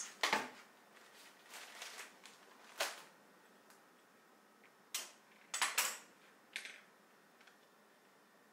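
Small kitchen containers and utensils being set down and handled on a countertop: about half a dozen separate short knocks and clatters, with quiet between them.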